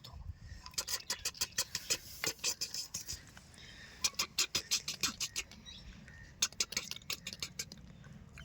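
Small plastic toy vehicles being handled and pushed along a surface: quick runs of light clicks, taps and rattles that come in clusters, with short gaps between them.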